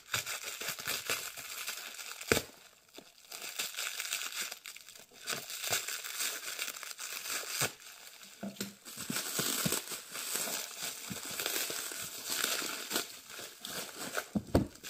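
Plastic stretch wrap crinkling as it is pulled and peeled off a bundle of old hardcover books, with a sharp knock about two seconds in.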